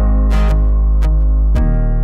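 Background music: plucked guitar over a steady bass, with the chord changing about halfway through.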